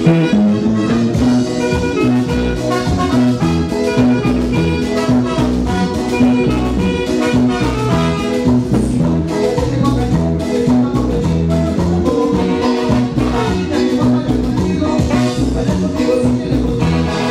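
Upbeat Latin dance music, salsa-style, playing loudly with a steady beat.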